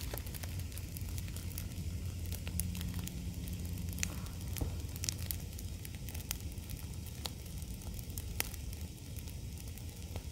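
Brush-pile fire of downed branches and twigs burning, crackling with sharp pops scattered irregularly over a low steady rumble.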